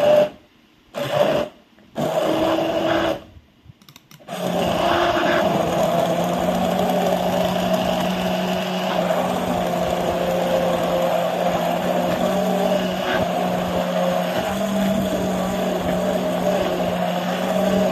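Hand-held immersion (stick) blender blending carrot and pear juice in a tall glass. It switches off and on three times in the first four seconds, then runs steadily.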